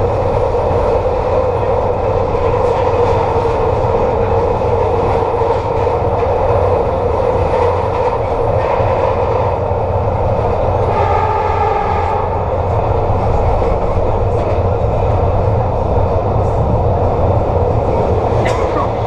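SEPTA Kawasaki K-car light rail vehicle rolling along the track: a loud, steady rumble of wheels and running gear. About eleven seconds in, a brief whine of several pitched tones rises over it, and a short rising squeal comes near the end.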